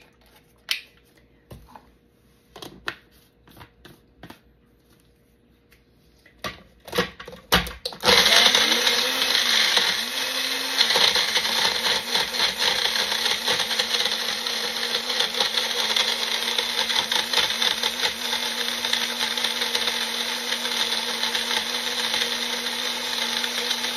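A few knocks and clicks as the cup is fitted onto the Magic Bullet base. About eight seconds in, the Magic Bullet's motor starts and runs steadily, blending banana, apple, dates and coconut water into a smoothie. Its pitch sags briefly just after starting as the blades take the load, then holds steady.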